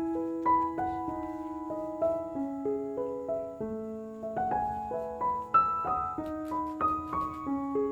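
Background music: a piano or keyboard melody of single struck notes, several a second.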